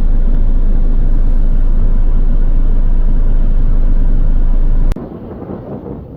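Strong wind buffeting the microphone: a loud, steady low rumble that cuts off abruptly with a click about five seconds in, leaving quieter wind noise.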